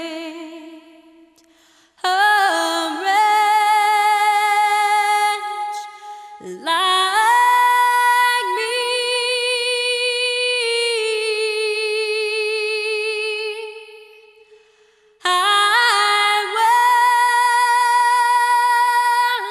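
Slow unaccompanied vocal music: a female voice sings long held notes in three phrases, with short breaks between them.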